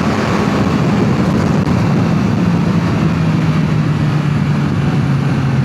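Yamaha MT-09 SP motorcycle's 890 cc inline three-cylinder engine with its stock exhaust, running at a steady cruise. Its pitch eases slightly lower, under wind and road noise.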